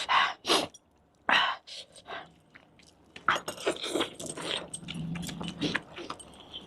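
A person eating chicken leg pieces close to the microphone: a few loud breathy bursts in the first second and a half, then a steady run of crackly, wet biting and chewing clicks.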